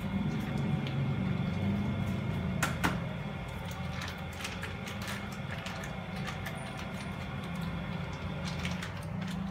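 Light clicks and taps of margarine being scraped from its packet into a plastic bucket with a wooden-handled utensil, with one sharper knock about three seconds in, over a steady low hum.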